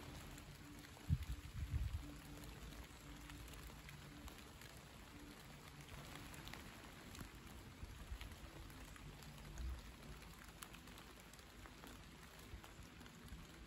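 Light rain falling: a faint steady hiss with scattered ticks of single drops. Brief low rumbles of wind on the microphone come about a second in and again near ten seconds.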